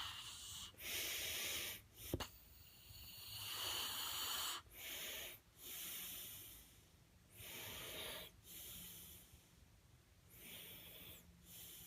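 Snoring: a run of airy breaths in and out, roughly one a second, with one sharp click about two seconds in.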